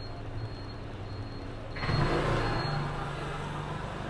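A motorcycle or scooter engine runs in the workshop with a steady low hum. About two seconds in it swells louder, then eases back near the end.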